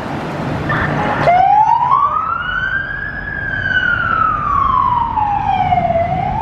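Emergency-vehicle siren on a fire rescue battalion chief's Ford Super Duty pickup: after a short blast about a second in, the siren winds into a slow wail, one long rise and fall in pitch that starts rising again near the end, over the truck's engine.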